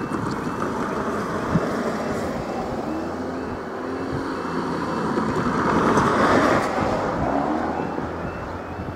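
Cars driving across a road level crossing, one passing close and loudest about six seconds in, over steady wind noise on the microphone.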